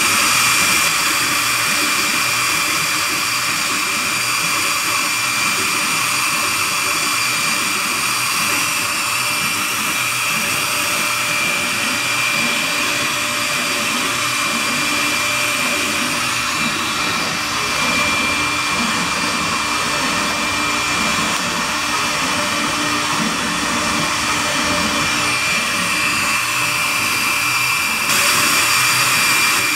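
Metallab CNC router spindle whining steadily at high speed while its tapered bit mills a 3D relief into wood, with the hiss of cutting under the whine.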